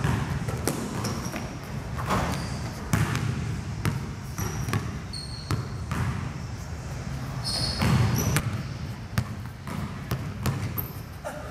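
Basketball dribbled on a gym court floor with irregular hard bounces, and a few short, high sneaker squeaks as the players cut.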